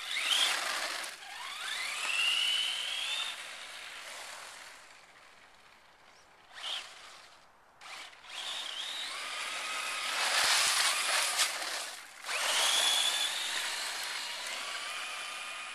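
Traxxas Slash 4x4 Ultimate RC truck's brushless motor and drivetrain whining, the pitch rising as the truck accelerates in bursts, with gritty tyre noise on a road strewn with sand and salt that gives poor traction. The sound fades in the middle as the truck runs far off, then picks up again.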